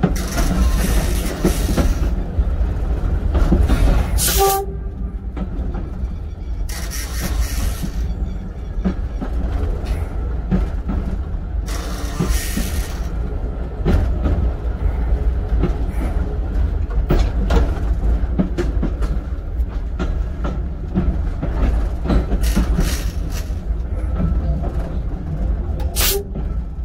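A train running along the track, heard from the driving cab: a steady low rumble with the wheels clattering over the rails, broken by several short bursts of hiss and a brief higher tone about four and a half seconds in.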